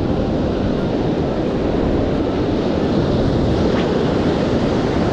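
Steady rush of wind on the microphone mixed with choppy surf breaking and washing on the beach.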